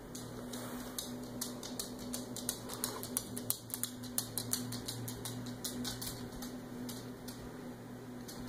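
Puppy's claws clicking on a hard wood floor as it runs, a quick irregular patter that thins out about halfway through, over a steady low hum.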